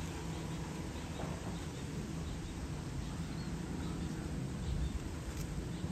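Steady low drone of distant construction machinery working on an earthmoving site, with a few faint, short, high chirps scattered over it.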